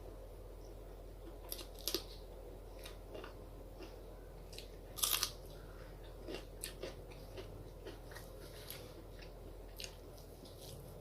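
A person eating close to the microphone: chewing, with scattered sharp wet mouth clicks, a pair of louder ones about two seconds in and the loudest about five seconds in.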